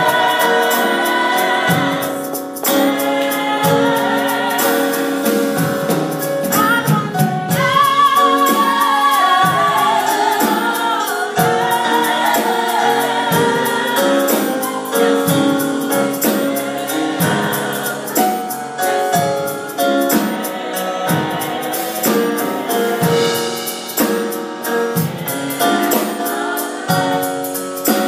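Small gospel choir singing in harmony on long held notes, with one lead voice's strong vibrato standing out about eight seconds in.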